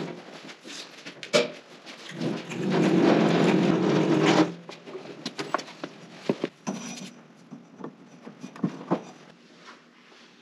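Casters of a Powermatic 60A jointer's mobile base rolling across a concrete floor: a rumble in two stretches, the second lasting about two seconds. It is followed by scattered knocks and clicks as the machine comes to rest.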